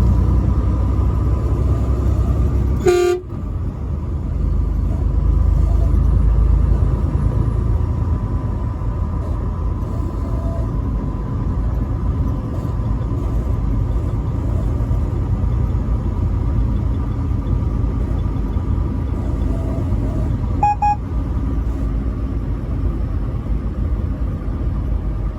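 Truck driving on the highway: steady engine and road rumble, with one short truck horn blast about three seconds in and a second brief, higher tone about twenty-one seconds in.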